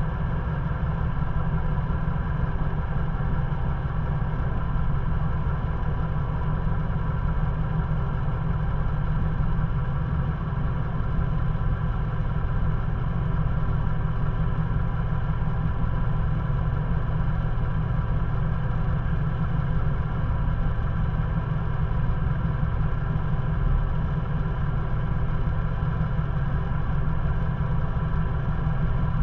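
Ford Bronco engine idling steadily, heard through the vehicle's hood.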